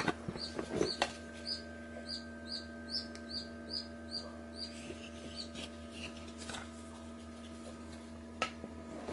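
A run of short high chirps, two or three a second, from a small chirping animal, dying away about halfway through over a steady electrical hum. A few sharp knocks stand out, including one near the end.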